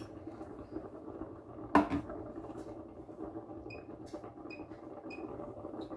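A metal spoon knocks once against a stainless steel frying pan of cooked ground beef about two seconds in. A low steady hum and a few faint ticks run underneath as the pan heats.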